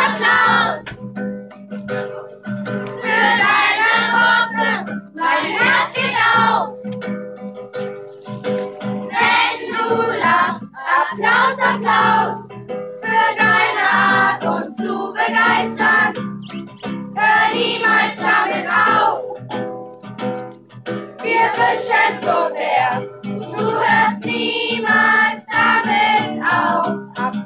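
Group of children singing a song in phrases with short breaks, accompanied by an acoustic guitar.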